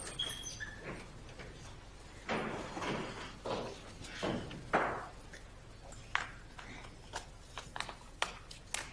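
Shuffling, rustling and soft knocks of people rising and moving off: a few brief swishes in the first half, then a run of sharp clicks and knocks near the end.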